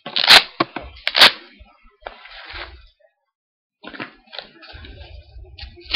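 Triple Eight wrist guards handled right at the webcam microphone: scratchy rustling and scraping of fabric and straps, with two loud scratchy bursts in the first second and a half. There is a short gap of near silence around the middle.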